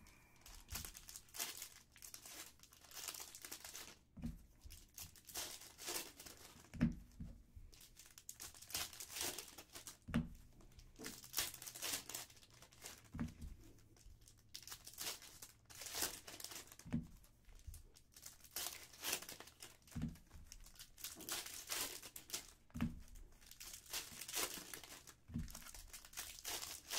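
Foil trading-card pack wrappers crinkling and tearing as packs are ripped open by hand, with a soft knock on the table every few seconds.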